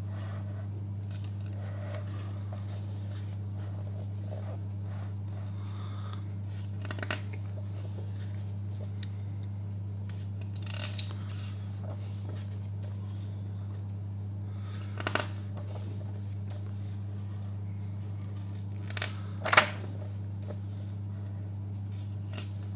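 Glossy pages of a large art catalogue being turned by hand: a few short paper flicks and rustles, the loudest near the end, over a steady low hum.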